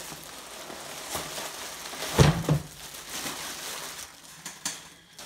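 Plastic bubble-wrap packaging being handled and pulled open by hand: a continuous crinkling rustle, with one louder bump about two seconds in.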